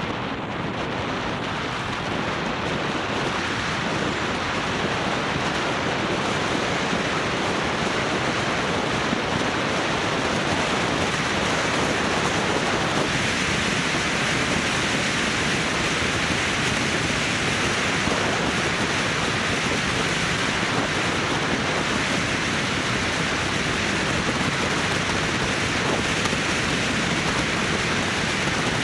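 Wind noise on the microphone: a steady rushing with uneven low buffeting, a little louder and brighter from about a dozen seconds in.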